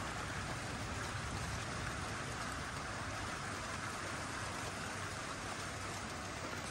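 Steady rain falling, an even hiss with no breaks or changes.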